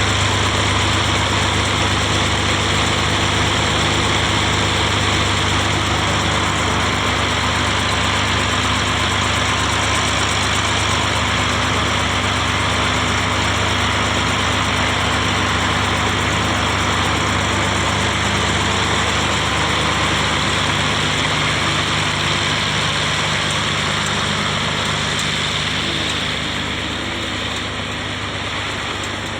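Diesel engine of a drainage water pump running steadily with a deep hum, getting a little quieter near the end.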